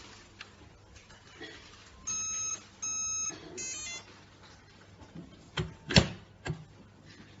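Electronic cabinet lock beeping: two short beeps about two seconds in, then a quick run of rapid chirping tones. A few seconds later come three sharp knocks, the middle one the loudest.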